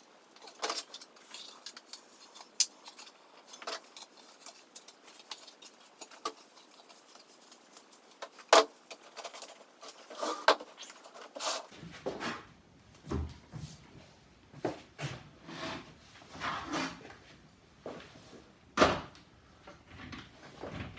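Irregular clicks, taps and knocks of boat stand parts being handled and fitted together, with a few sharper knocks about 8.5 and 10.5 seconds in and near the end.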